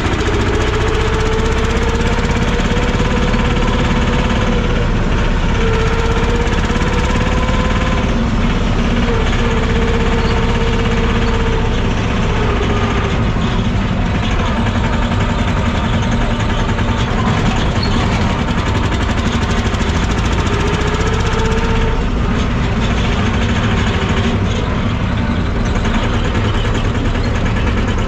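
Tofaş car with a freshly repaired four-speed gearbox running on a test drive: engine and drivetrain running steadily, with a tone that slowly rises and falls as the car changes speed. No gearbox noise is heard, the repaired box shifting cleanly into all gears including fourth.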